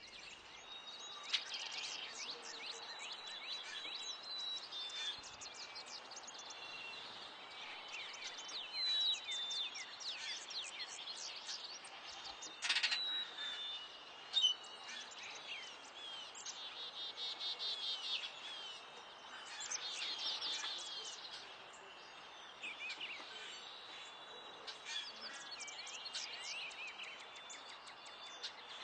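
Many songbirds chirping and singing at once: a busy chorus of rapid chips, short whistles and trills. A few louder, sharper calls stand out about halfway through.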